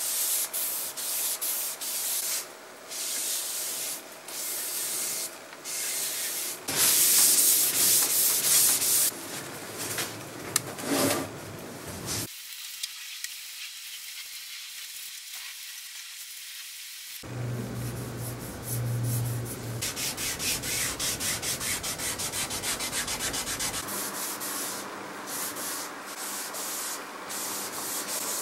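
Cloth pad rubbing walnut wood stain into a wooden chest's surface in quick, repeated wiping strokes.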